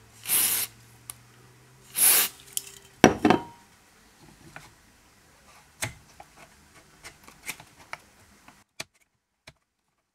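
Two short hissing bursts from an aerosol can of contact cleaner, sprayed onto the radio's band-selector contacts, about a second and a half apart. A sharp knock follows about three seconds in, then scattered light clicks and taps.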